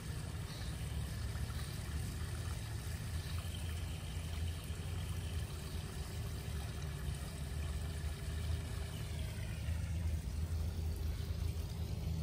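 Water from a backyard koi pond's rock waterfall splashing steadily down into the pond.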